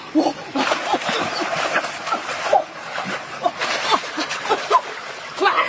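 Water splashing and sloshing as a person thrashes and lunges through a shallow stream with their arms, with short voice sounds over it.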